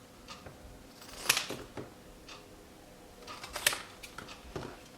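Scissors snipping through a flap of duct tape: two sharp snips about two and a half seconds apart, with fainter clicks and handling between.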